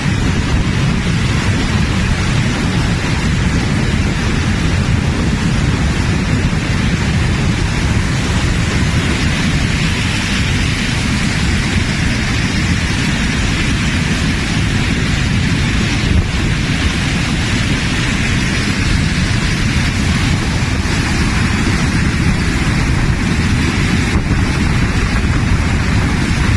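Flash-flood water rushing: a loud, steady noise of churning water with a deep rumble underneath and a hiss on top.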